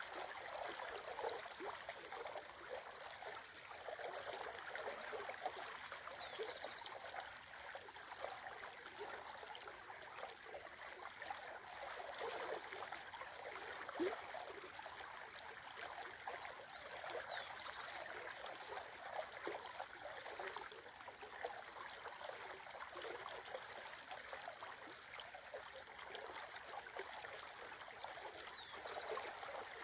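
Shallow river water rippling and babbling steadily over its bed. A bird gives a short high call three times, roughly every eleven seconds.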